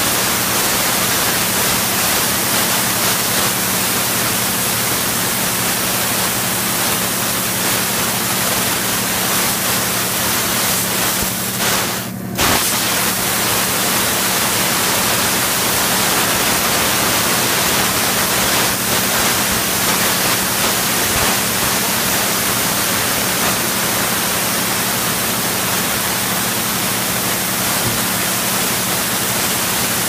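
CNC laser cutter cutting sheet metal: a steady loud hiss from the cutting head and machine, with a low hum underneath. The hiss cuts off for a moment about twelve seconds in, then resumes.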